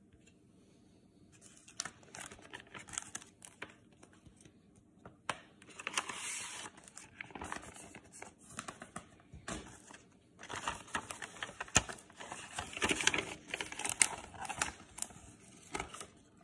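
Trading cards in plastic sleeves and toploaders being handled and shuffled: crinkling, rustling plastic in bursts from about a second and a half in, with a few sharp clicks, loudest in the second half.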